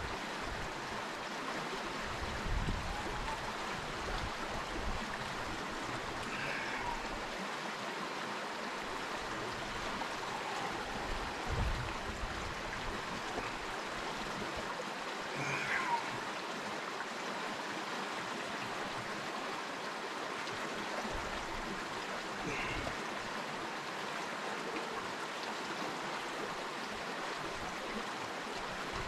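Partly iced-over mountain creek flowing steadily, a constant rush of water.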